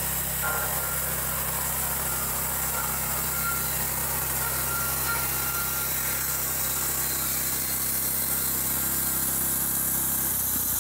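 Gas-engine band sawmill running under load as its blade cuts along an eastern white cedar log: a steady engine drone under the high hiss of the band blade in the wood.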